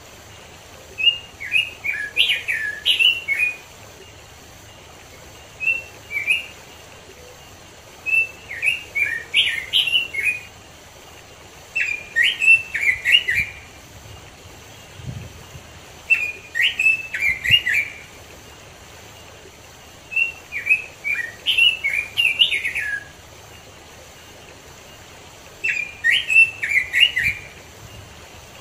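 Red-billed leiothrix (Pekin robin) singing: rich, fast warbled phrases of two to three seconds, repeated about every four seconds with short pauses between them.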